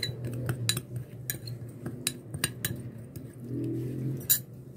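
Metal spoon clinking and scraping against a textured glass bowl while stirring ground spices, a run of irregular light clinks several times a second with one louder clink near the end, over a low steady hum.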